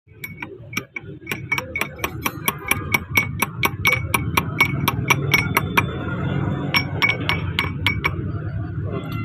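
Hammer tapping on metal: a quick run of sharp, ringing strikes, about four a second. They pause about six seconds in, then a few more come before they stop, over a low steady hum.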